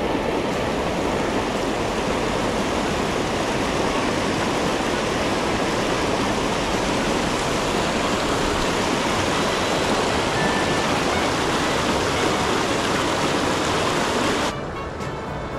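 Mountain stream rushing over rocks in small rapids: a steady, loud rush of white water. Near the end it drops off sharply to a quieter level.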